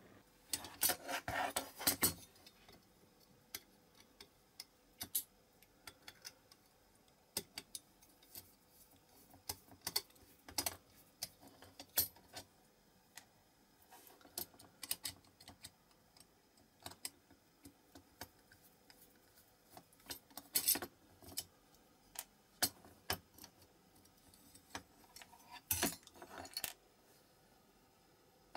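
Metal parts of a Dinky diecast Hawker Hurricane Mk II toy aeroplane clicking, clinking and scraping as it is handled and taken apart with a small screwdriver. The taps and clicks are irregular, with louder clusters of rattling about a second in, around two-thirds through and near the end.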